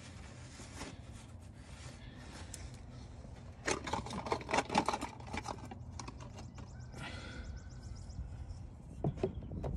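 A cloth rag rubbing quietly over the oil filter mounting surface under the engine. About four seconds in there is a quick flurry of clicks and knocks, the loudest part, then a few lighter ticks.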